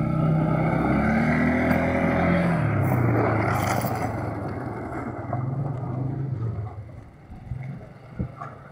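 ATV (four-wheeler) engine running and revving as it tows a couch across gravel, with the couch scraping and crunching over the stones. The engine pitch climbs, then drops about two and a half seconds in, and the sound fades as the quad pulls away near the end.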